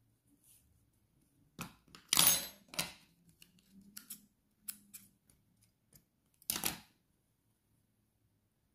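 Handling sounds from sewing a crocheted bootie with a plastic yarn needle: a string of short rustling scrapes as the yarn is drawn through the fabric and the piece is moved about, the loudest about two seconds in and another just before seven seconds.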